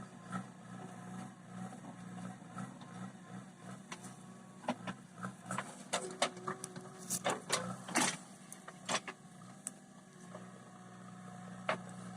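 JCB 3DX Eco Xcellence backhoe loader's diesel engine running steadily, with a run of sharp cracks and knocks between about four and nine seconds in.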